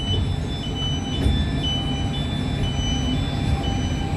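Electronic two-tone warning signal, high and low beeps alternating steadily, typical of a train's door-closing warning. Under it runs the steady low rumble of the standing electric regional train.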